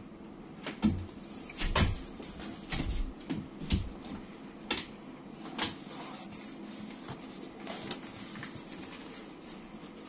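Printed sheet-metal tin box handled and turned over in the hands: a string of light knocks and clicks as it is gripped and shifted, thinning out after about six seconds into quieter rubbing.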